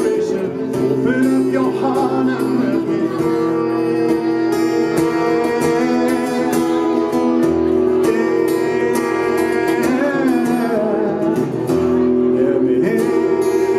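A man singing live, accompanying himself on a strummed acoustic guitar.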